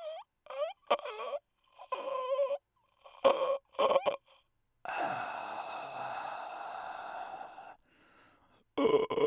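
A man's voice doing a comic imitation of a snoring old man: several short pitched vocal noises, then one long breathy exhale of about three seconds starting about five seconds in, and more short noises near the end.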